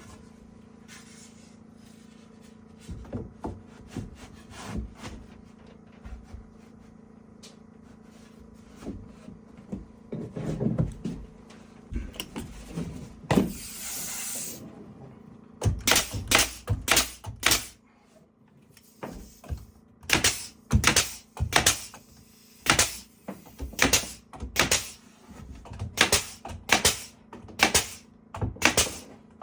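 Hammer driving nails into wood: scattered knocks at first, a short scrape about halfway, then runs of sharp, regular blows, about one to two a second, through the second half.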